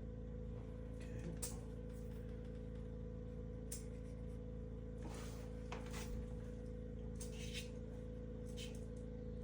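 A steady low hum, with a handful of short scraping or rustling noises scattered through it.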